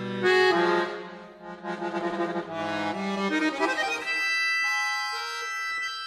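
Solo chromatic button accordion playing: loud accented notes and quick flurries of notes over low bass, then from about four seconds in a long held high chord.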